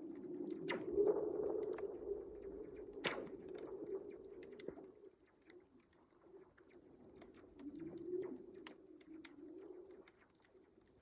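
Lake ice sheet breaking up in the spring thaw, humming and moaning in a low wavering tone that swells and fades, with sharp cracks and ticks scattered throughout; the loudest crack is about three seconds in.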